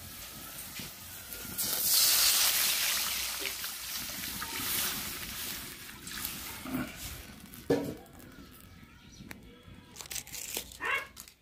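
Garlic and onions frying in hot oil in a pan: the sizzling flares up loudly about two seconds in, then fades over the next several seconds. A few light clicks of utensils on the pan follow near the end.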